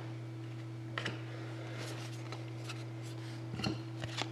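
A steady low hum under light handling noise of trading cards and packaging: a sharp click about a second in and a few soft clicks and rustles near the end.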